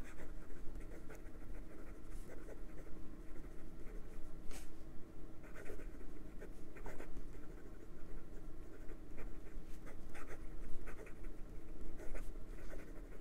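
Fine steel fountain pen nib of a Jinhao 100 Centennial scratching across notebook paper in quick cursive, a run of short irregular scrapes. The ink flows without skipping.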